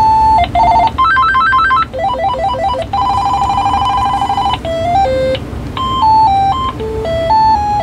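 AT&T CL83213 DECT 6.0 cordless handset playing short electronic ringer-tone previews through its speaker as its ringer tones are stepped through, one tune after another: a fast two-note trill, a quick run of rising notes, a steady warble, then a slow stepping melody. This is the handset whose speaker the owner finds still vibrating.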